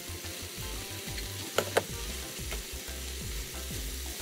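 Steady sizzling of chicken, mushrooms and broth in a skillet as cooked fettuccine is stirred and tossed in with tongs. Two sharp clacks about a second and a half in.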